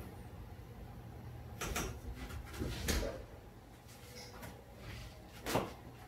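Spine cracking under the weight of bare feet in back walking: three short sharp pops, the loudest about three seconds in.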